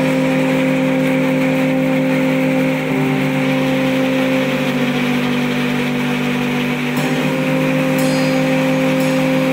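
Background music: sustained low chords that shift to new notes about three seconds in and again about seven seconds in.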